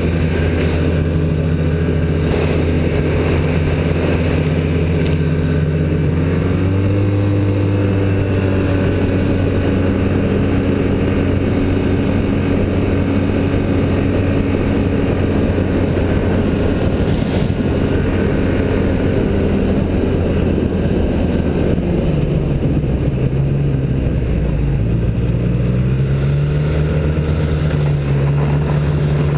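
Snowmobile engine running at cruising speed, heard from on the machine itself, a steady drone with a hiss of wind and track over it. Its pitch steps up a little about a quarter of the way in, then sags and climbs back as the machine eases off and speeds up again near the end.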